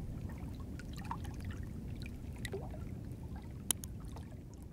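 Steady low rumble with faint trickling and scattered small ticks, like a water ambience bed, fading out toward the end. One sharp click about three and a half seconds in matches the Subscribe button being clicked.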